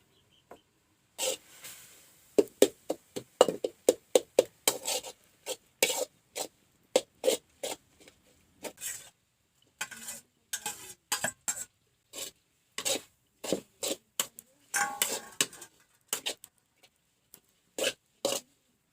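A run of short rasping, scraping strokes in food preparation, about two or three a second, with brief pauses between bursts.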